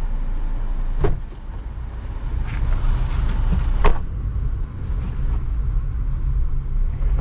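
Taxi running, heard from inside its cabin: a steady low rumble of engine and road. Two short knocks stand out, one about a second in and a louder one a few seconds later.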